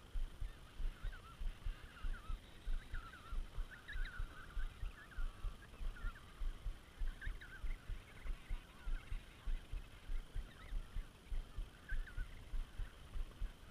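Emperor penguin colony calling: many short, wavering, whistling calls overlapping throughout. Underneath, a low thudding on the microphone repeats about three times a second and is the loudest sound.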